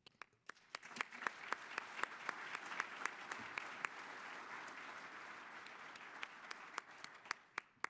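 Audience applauding: dense clapping with a few sharper single claps standing out, building up quickly and dying away near the end.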